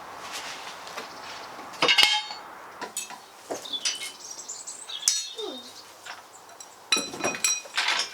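Metal tools or parts being handled, with a few sharp, ringing clinks, the loudest about two seconds in and a quick cluster near the end.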